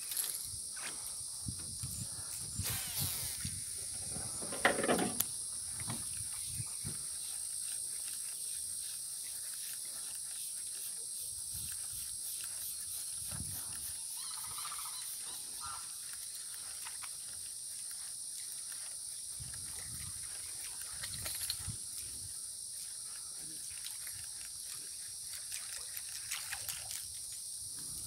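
Quiet open-air ambience on a lake: a steady high hiss with faint scattered clicks and small knocks, and a brief louder sound about five seconds in.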